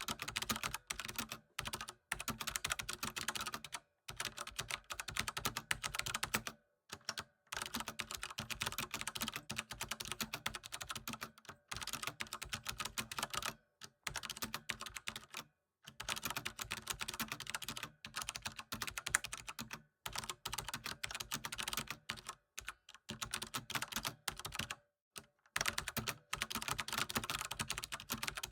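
Computer keyboard typing: fast, continuous runs of key clicks, broken every couple of seconds by brief pauses.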